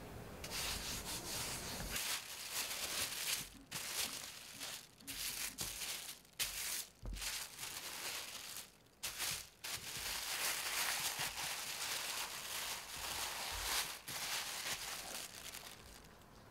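Thin plastic bag crinkling and rustling in irregular bursts as a block of pastry dough is wrapped in it.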